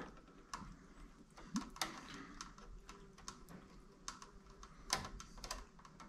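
Faint, irregular little clicks and scrapes of bare copper ground wires being handled and fed into a small crimp sleeve.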